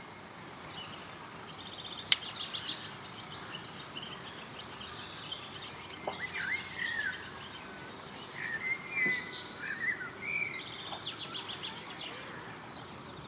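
Outdoor ambience of songbirds singing: scattered chirps and short rattling trills that come and go, over a steady faint high-pitched tone, with one sharp click about two seconds in.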